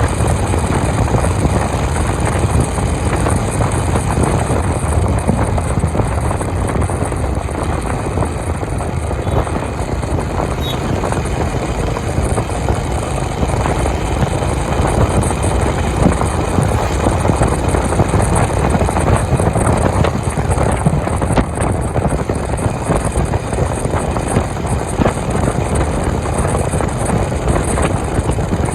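Honda CB350 motorcycle cruising at steady highway speed, engine running evenly under a loud, steady rush of wind noise.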